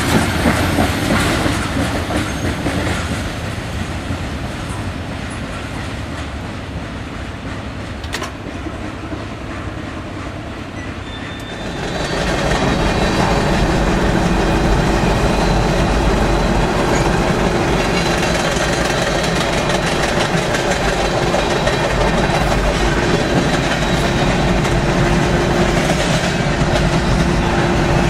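A CSX freight train's cars rolling past, wheels clacking over the rail joints, growing suddenly louder about twelve seconds in, with a faint steady squeal over the rumble.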